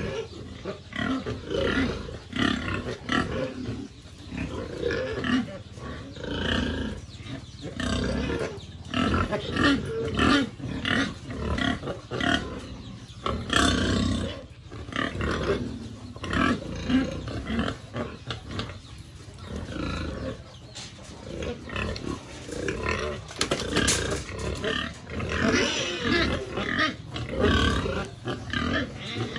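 Hungry pigs in pens squealing and screaming almost without pause, many loud overlapping calls mixed with grunts, with a few sharp knocks among them.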